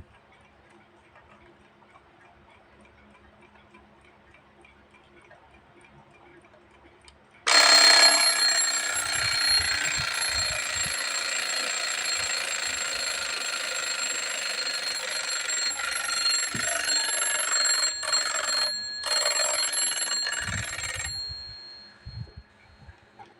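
Vintage alarm clock ticking faintly, then its alarm bell goes off suddenly about seven seconds in. It rings loudly for about thirteen seconds, with a brief break near the end, and then stops, leaving the faint ticking.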